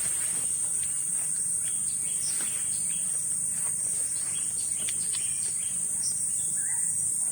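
Steady high-pitched insect chorus, one unbroken shrill drone, with scattered short chirps and ticks over it.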